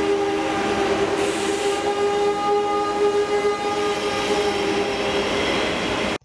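ICE electric high-speed train running past, with a steady whine of several held tones over the rumble of the wheels. The sound cuts off suddenly at the end.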